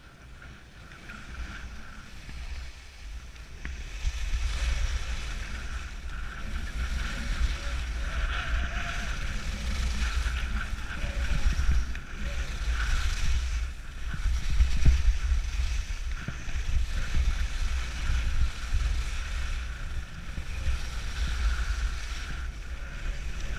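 Wind rushing over a head-mounted camera's microphone while skiing downhill, with the hiss and scrape of skis on packed snow swelling and fading through the turns. It grows louder about four seconds in as speed builds.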